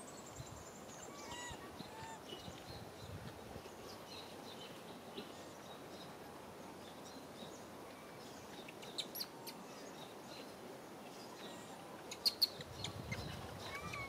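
Faint outdoor ambience with scattered short, high chirping and squeaking calls, and a few sharp clicks about nine seconds in and again near the end.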